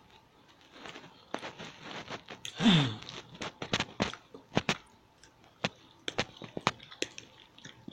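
Mouth sounds of a person eating: scattered lip smacks and chewing clicks, with a brief falling "mmm" of enjoyment about two and a half seconds in.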